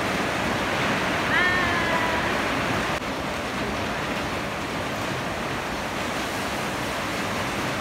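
Steady rushing noise, like running water or heavy rain, with a brief high voice or squeal about a second and a half in.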